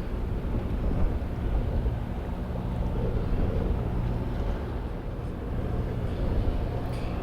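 Low, steady drone of the ferry AF Francesca's engines as the ship comes in to berth.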